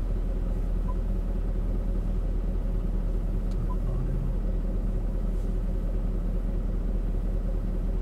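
Jaguar F-Type R's supercharged 5.0-litre V8 idling steadily, a low even rumble heard from inside the cabin.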